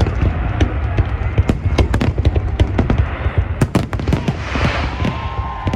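Fireworks display: rapid, irregular bangs of bursting shells over a continuous low rumble, with a stretch of hissing crackle near the end.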